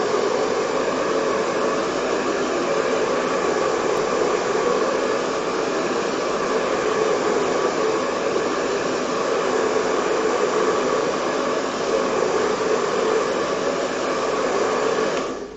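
Heat gun blowing hot air steadily, drying a water-based colour over texture paste on a wooden board. It switches off sharply near the end.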